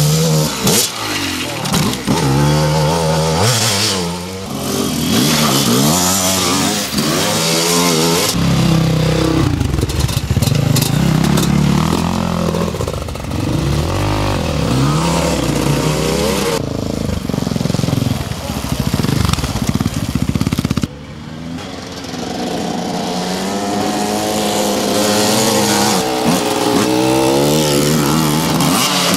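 Enduro dirt-bike engines revving hard on a trail, the pitch rising and falling with the throttle in repeated surges. Several separate passes are cut together, so the sound changes abruptly a few times.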